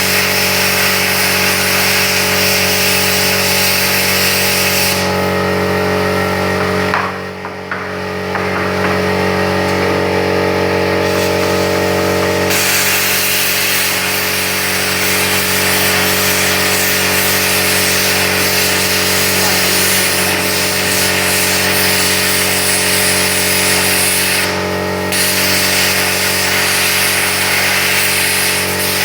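Plasma cutter running: a loud, steady hiss over a constant machine hum. The hiss thins for several seconds early on, with a short drop in level, then comes back, and it breaks off briefly once more near the end.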